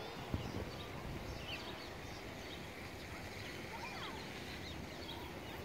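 Outdoor ambience: a steady low background rumble with a few faint, scattered bird chirps and one brief tap just after the start.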